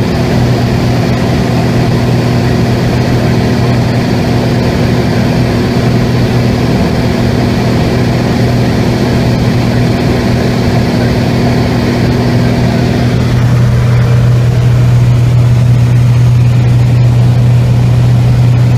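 Light aircraft's piston engine and propeller droning steadily, heard from inside the cabin. About 13 seconds in the sound changes abruptly: the higher tone drops away and the low drone grows louder.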